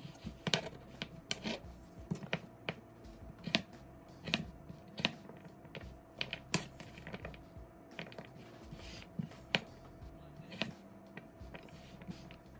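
Chef's knife chopping raw potato sticks into cubes on a plastic cutting board: sharp knocks of the blade striking the board, one or two a second at an uneven pace.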